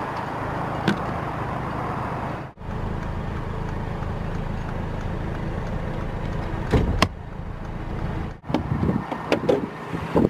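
Handling noises from a Mercedes-Benz SLC's body fittings over a steady low rumble: the fuel filler flap clicks shut about a second in, the bonnet release lever clunks twice when pulled around two-thirds of the way through, and near the end the bonnet catch clicks and rattles as it is released.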